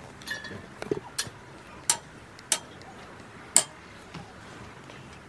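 A handful of separate sharp metallic clicks and clinks, irregularly spaced, the loudest about three and a half seconds in: hand tools and fasteners at work under a car as its plastic engine under tray is refitted.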